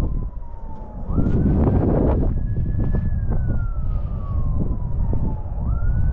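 Distant emergency-vehicle siren wailing. Its pitch holds high, slides slowly down, then jumps quickly back up, twice. Wind rumbles on the microphone throughout, with a stronger gust about a second in.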